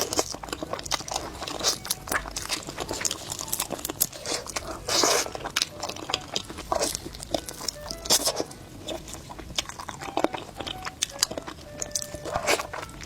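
Close-miked eating: crunching bites and chewing with many quick, irregular clicks and wet smacks. There is a longer, louder burst of crunching about five seconds in.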